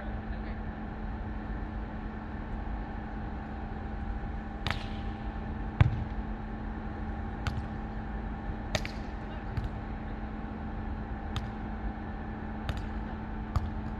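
A volleyball being struck by players' hands and forearms in a passing drill, about eight sharp slaps spaced a second or so apart from about a third of the way in, the loudest near the middle. A steady background hum runs underneath.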